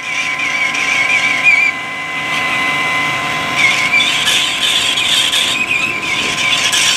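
Metal lathe running and turning a part, plausibly the motorcycle gearbox shifting drum being machined down, with a steady whine and a high wavering squeal from the cutting tool that comes and goes.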